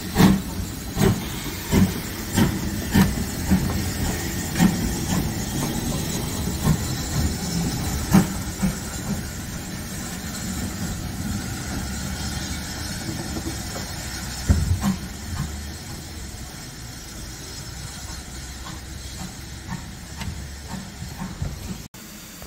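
Ivatt Class 2MT 2-6-2 tank locomotive No 41241 getting under way, its exhaust beating slowly and unevenly over a steady hiss of escaping steam. The beats are loudest in the first few seconds, then fade as it draws away.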